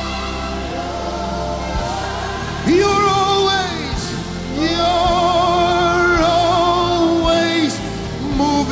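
Live gospel worship music: sustained keyboard chords under a wordless voice holding two long notes with vibrato, the second lasting about three seconds.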